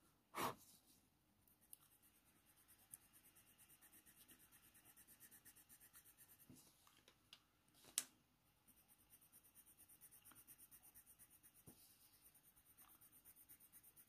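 Faint scratching of a Faber-Castell Polychromos warm grey colour pencil making short strokes on hot-press watercolour paper, near silence overall. There is a short louder sound about half a second in and a sharp click about eight seconds in.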